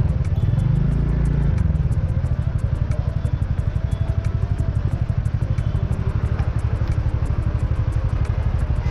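Motor scooter engine running at low speed in slow traffic, heard from the rider's seat. It has a rapid, even pulsing beat.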